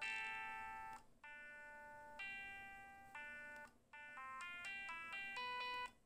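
Panasonic EB-G50 mobile phone playing a built-in ringtone melody through its speaker: a tune of electronic notes rich in overtones. It breaks off briefly about a second in and again near four seconds, then runs into a quicker string of short notes before cutting off at the end.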